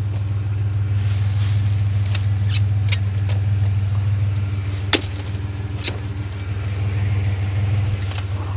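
Truck engine idling steadily, with a few short sharp knocks and clatters over it, the loudest about five seconds in.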